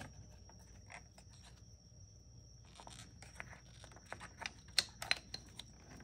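Light clicks and scrapes of hard plastic and metal as a new camshaft position sensor is handled and pushed into its bore in the cam cover. The clicks come sparse at first, then closer together in the second half, with one sharper click about five seconds in.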